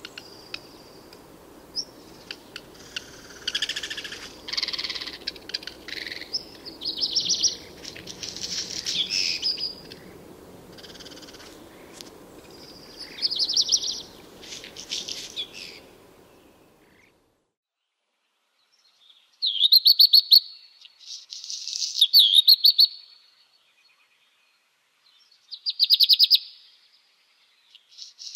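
Black redstart singing: short song phrases repeated every few seconds. In the first half they sit over a steady background hiss; after a brief gap the phrases come louder and cleaner.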